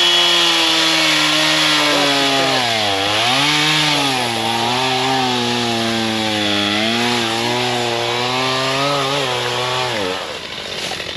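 Two-stroke chainsaw running at high revs while cutting through wood. Its pitch sags briefly about three seconds in as the chain loads up in the cut, wavers through the rest of the cut, then drops away near the end.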